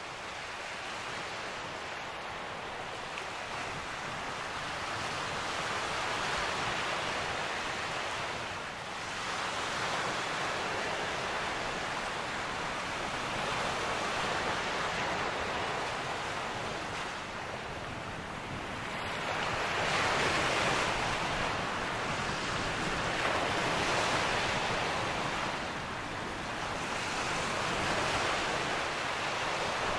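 Sea waves washing onto a shore: a steady rushing that swells and ebbs every four to six seconds.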